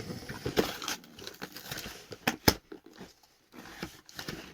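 Toy packaging being handled and pulled apart: rustling and crinkling with scattered sharp clicks, the loudest about two and a half seconds in.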